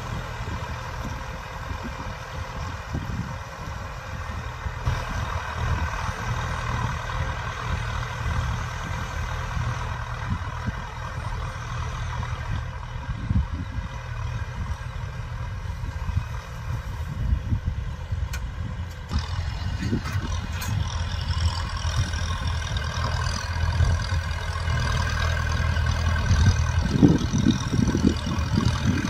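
Kubota M6040 tractor's diesel engine running steadily under load as it pulls a plough through dry, stony soil. It grows louder over the last third as the tractor comes close.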